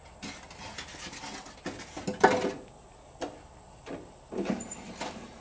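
Irregular knocks, clicks and scrapes of a tool and parts being worked inside a 1982 truck door, about eight sharp knocks in all, the loudest just past two seconds in.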